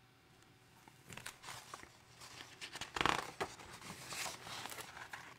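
Paper rustling and crinkling as a picture book's pages are handled and turned, in a few uneven bursts, the loudest about halfway through.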